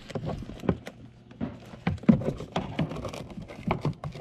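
Irregular rustling, clicks and light knocks of hands pushing a wire up behind plastic car interior trim.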